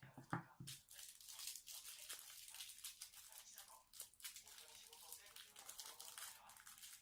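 Faint crinkling and small clicks of plastic being handled, with a soft thump just after the start.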